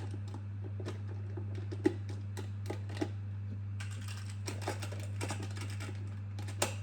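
Plastic magnetic building tiles clicking and clattering as they are handled and snapped together: a run of small, irregular clicks with a sharper click about two seconds in and another near the end, over a steady low hum.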